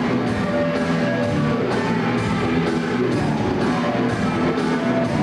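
Live rock band playing: electric guitar over a drum kit keeping a steady beat of about two hits a second.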